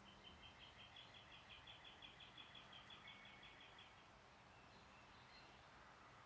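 Faint bird song: a rapid trill of evenly spaced high notes, about six a second, lasting about four seconds, over a quiet background hiss.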